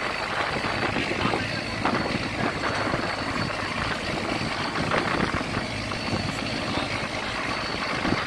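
A boat engine running steadily, with a constant low hum under a rushing wash of wind and sea water.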